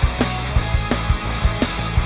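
Background music with a steady drum beat, about three beats a second.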